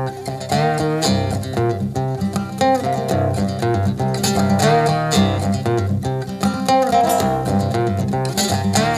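Acoustic guitar played blues style with a bottleneck slide: plucked and strummed notes with sliding, bending pitches, without vocals.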